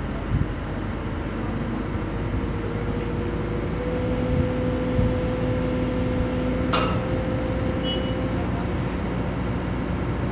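Heavy construction machinery running steadily, with a low hum and a faint held whine through the middle. A single sharp click about two-thirds of the way through.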